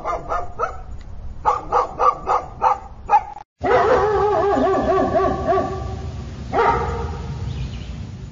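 A dog barking in a quick series, about three or four barks a second. After a short break come long howls that waver in pitch, the second starting about three seconds after the first.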